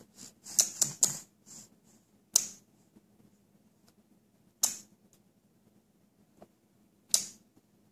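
A baby blowing spit bubbles with its lips: short, wet pops and sputters. A few come close together in the first second, then single ones about every two and a half seconds.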